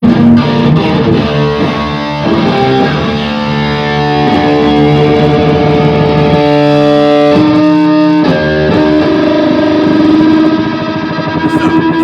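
Electric guitar played through an Orange Super Crush combo amplifier: chords and single notes held and left to ring, changing every second or two.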